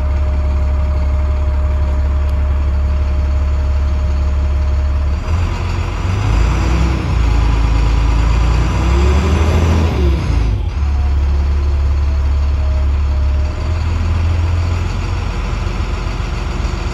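Bus diesel engine idling, heard inside the cab, while its air compressor builds up brake air pressure. From about five seconds in the sound gets rougher, with a whine that rises and falls, then settles back to a steady idle about ten seconds in.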